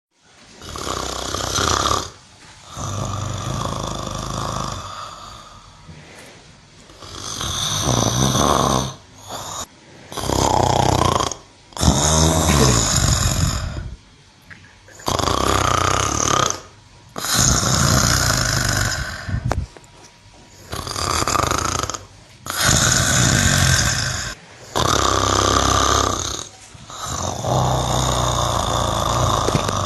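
Loud snoring: about eleven long, noisy snores in an even rhythm, one every two to three seconds. One snore about twelve seconds in carries a rapid fluttering rattle.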